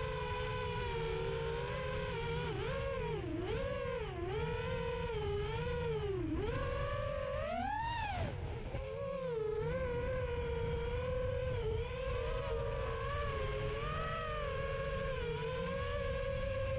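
FPV quadcopter's brushless motors and propellers whining, the pitch dipping and climbing with the throttle as it swoops, with a sharp climb about eight seconds in and a slow rise near the end. A steady low rumble of wind on the drone's onboard camera microphone runs underneath.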